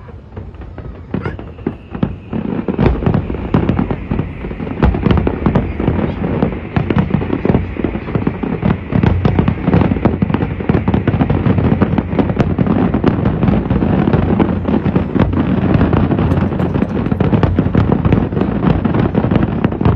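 Fireworks display: many aerial shells bursting in quick succession, thickening over the first few seconds into a near-continuous barrage of bangs.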